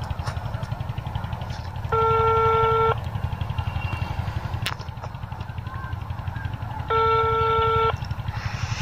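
Telephone ringback tone on an outgoing call: two one-second beeps of one steady pitch, about five seconds apart, as the line rings waiting to be answered. A steady low rumble runs underneath.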